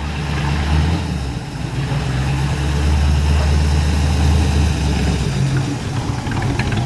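The small-block V8 of a 1960 Chevrolet Corvette running at low speed as the car rolls slowly past, a steady low rumble that drops away about five seconds in.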